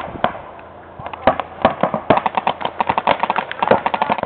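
Paintball markers firing: a couple of single pops, then from about a second in a fast, continuous string of sharp pops, roughly ten a second.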